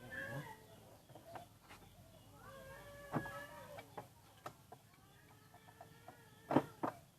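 Chickens clucking, with scattered sharp clicks and a louder knock about six and a half seconds in.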